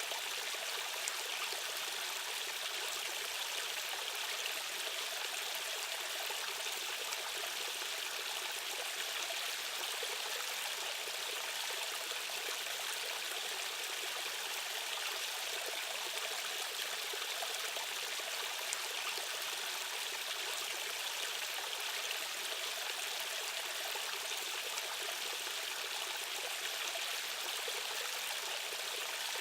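Fast-running stream water rushing steadily: an even hiss with little low rumble.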